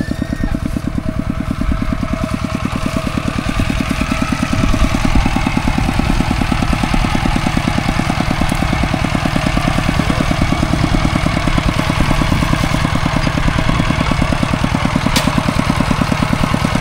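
Farm tractor engine running steadily with a fast, even chugging, growing louder over the first few seconds.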